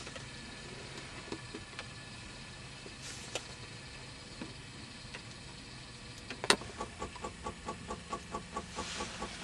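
Light aircraft engine being cranked by its electric starter: a sharp click about six and a half seconds in, then an even pulsing about three times a second as the propeller turns over, just before the engine fires. Before that, only faint scattered ticks.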